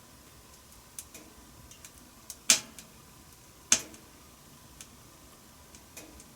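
Wood fire crackling in a wood-burning stove: scattered small clicks and snaps, with two loud sharp pops a little over a second apart midway through.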